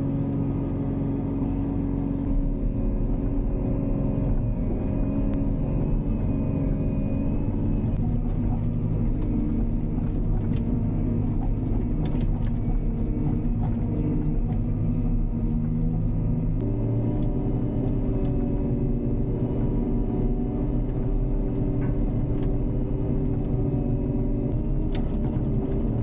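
JCB Hydradig wheeled excavator's diesel engine running steadily under load, heard from inside the cab, its pitch shifting a few times, most clearly about two-thirds of the way through. Light scattered ticks and rattles sound over it.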